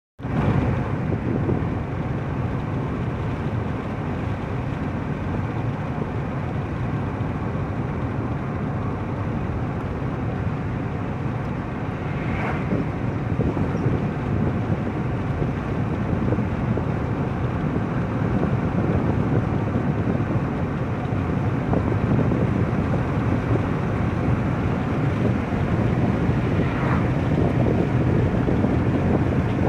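Steady wind and road noise of a moving car, heard from inside the cabin, growing a little louder in the second half.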